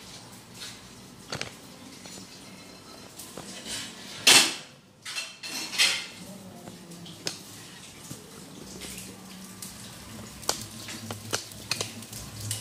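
Metal kitchenware clattering and clinking: pots, bowls and utensils knocking together. There is one loud clatter about four seconds in and a run of light clicks near the end.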